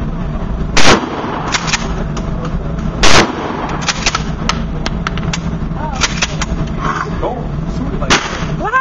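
Gunshots at a shooting range: two very loud close shots about two seconds apart, with several quieter shots between and after them.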